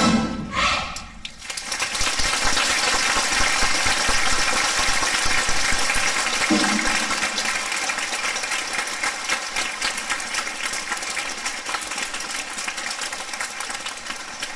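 A band's last note breaks off at the very start; from about a second and a half in, a large audience claps steadily, the applause slowly fading.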